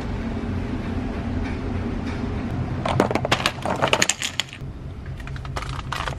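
Offset control-arm bushing parts clinking and rattling together in a plastic bag as it is handled: a quick run of clinks about three seconds in and a few more near the end, over a low steady hum that drops away about four seconds in.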